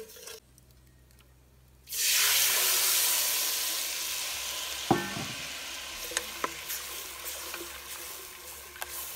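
Coconut milk poured into a pot of hot oil and fried curry spices, starting a loud sizzle suddenly about two seconds in that slowly dies down. A wooden spoon stirs through it, with a single clink against the pot near the middle.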